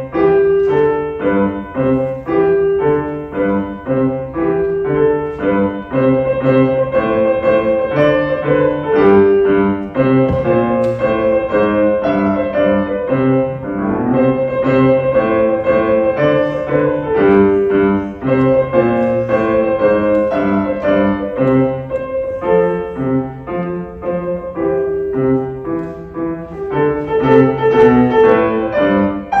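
Piano played by a six-year-old beginner at a recital: a simple melody over a steady, repeated bass accompaniment.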